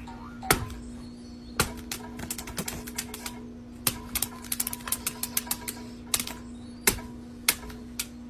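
A dog's claws clicking and tapping on a tablet's glass screen as it paws at a game, in quick irregular taps with a few sharper single strikes.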